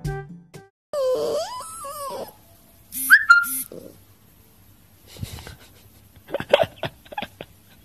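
Husky puppies vocalising: a wavering howl that bends up and down, then two sharp high yelps about three seconds in. Later come short scuffles and squeaks as the puppies wrestle.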